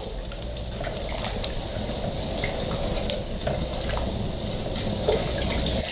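Milk and sugar being stirred with a long spoon in a large aluminium pot: steady liquid swishing with scattered light clicks.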